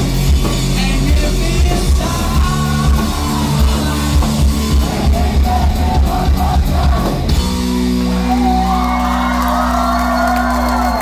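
Live rock band with drums, electric guitars and singing, with yelling over the top. About seven and a half seconds in the drums stop and the band holds one sustained chord that rings on.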